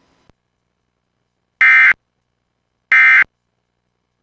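Emergency Alert System end-of-message (EOM) tones: short bursts of digital SAME data tones, each about a third of a second long and about a second and a quarter apart. There are two full bursts, and a third starts right at the end. These bursts mark the close of the alert.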